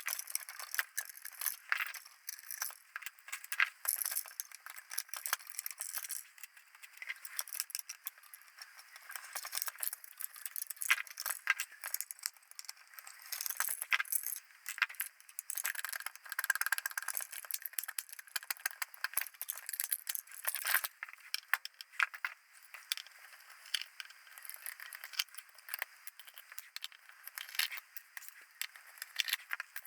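Irregular clicking, clinking and rattling of small metal parts and hand tools as a compact avionics camera is taken apart, with occasional scrapes.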